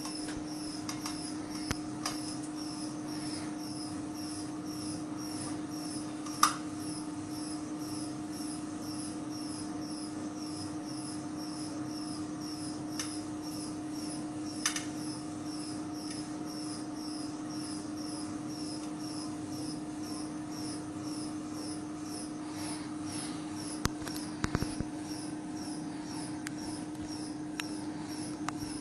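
Testing machine running under load with a steady hum and a regular high chirp about twice a second. Over it, the carbon-textile-reinforced geopolymer panel gives sharp cracking clicks as the bending load opens cracks in the mortar: the loudest about six seconds in, another near fifteen seconds, and a quick cluster about twenty-four seconds in.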